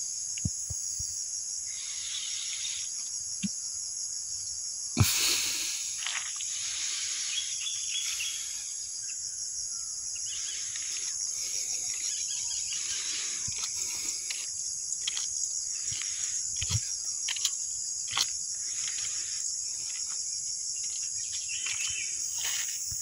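Steady, high-pitched chorus of trilling insects in roadside forest, with one sharp knock about five seconds in.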